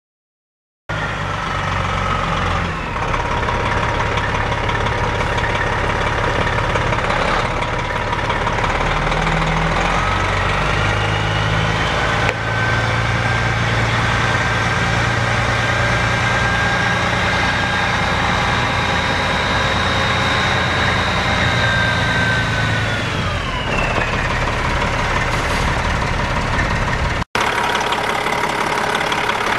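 Detroit Diesel Series 60 12.7-litre six-cylinder diesel in a 1999 Freightliner Century Class semi truck running. About ten seconds in it is brought up in speed with a rising whine, held there, then let back down to idle near the end.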